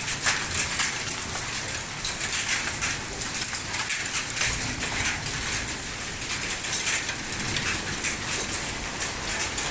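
Hail mixed with rain falling hard in a strong hailstorm: a dense, steady patter of many small impacts.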